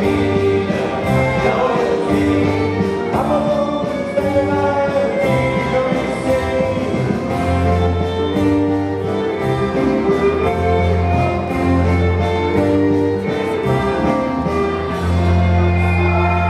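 Dance music with singing over a bass line of long held notes that change every second or two.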